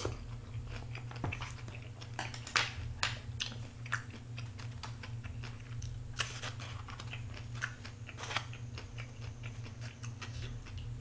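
A person chewing a mouthful of raw fish and vegetables close to the microphone: irregular wet clicks and smacks, with a steady low hum underneath.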